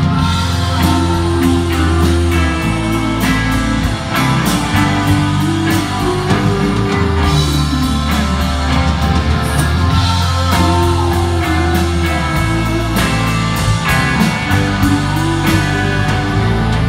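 Live rock band playing: electric guitars over bass guitar and drum kit, with steady drum hits and held bass notes.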